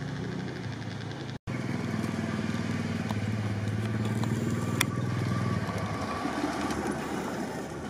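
A Willys jeep's engine running at low, steady revs as the jeep comes down a sandy slope, fading away near the end.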